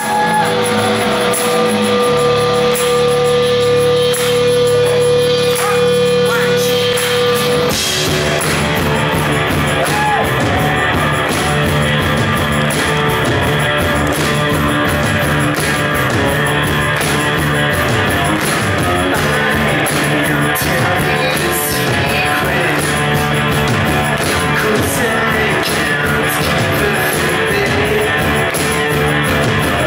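Rock band playing live on electric guitars, bass and drums, with vocals, recorded from within the audience. It opens on one long held note over a low drone, and about eight seconds in the drums and full band come in.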